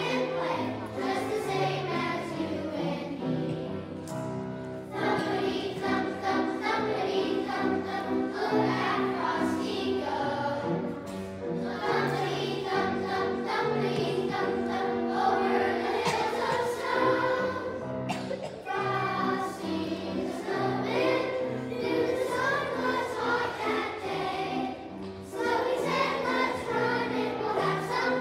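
Children's choir singing a holiday song with musical accompaniment, with brief breaks between phrases about four seconds in and near the end.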